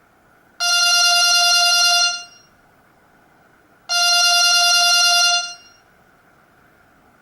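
An LG GX200 ringtone played through the loudspeaker of a Samsung GT-E2121B mobile phone. It is a single steady-pitched electronic ring that sounds twice, each ring about a second and a half long, with a pause of about two seconds between them.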